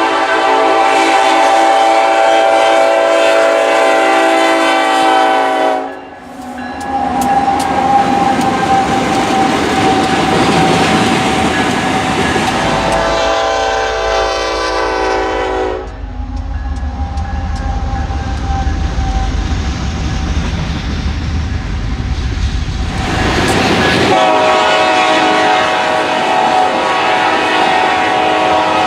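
GE C30-7 diesel locomotive's air horn sounding long, loud blasts: one blast, a short break about six seconds in, then another long blast. About halfway through the horn fades under the train's low rumble for several seconds, and near the end it sounds loudly again.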